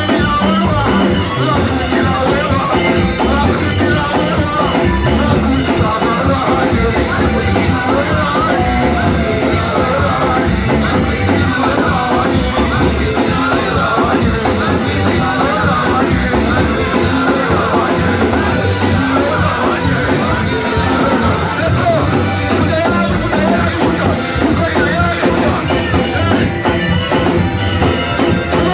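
Church worship band playing loud, up-tempo music with a heavy driving beat and singing over it.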